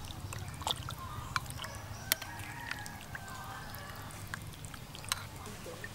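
A ladle clinking against a glass bowl a few times as wonton dumplings and broth are spooned in, with broth dripping and splashing lightly. Faint bird calls in the background.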